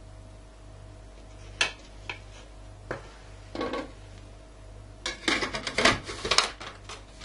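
A spoon knocking a few times against the metal bowl of a small electric food chopper, then a plastic lid clattering and knocking as it is fitted onto the bowl.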